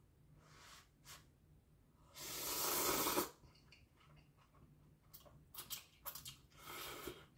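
A person eating instant noodles close to the microphone: a loud slurp lasting about a second, then wet chewing and mouth clicks, with a second, shorter slurp near the end.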